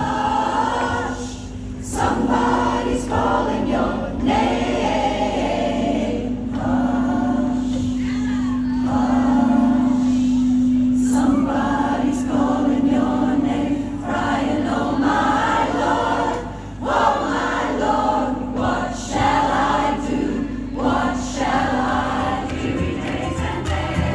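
Choir singing in harmony, with a low note held steady for several seconds early on.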